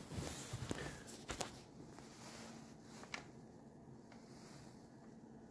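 Faint handling noise: a few light clicks and rustles in the first second and a half and one more click about three seconds in, over quiet room tone with a weak steady hum.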